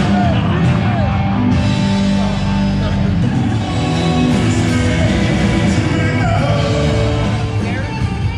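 Rock music with a sung vocal, a full band with a steady low end.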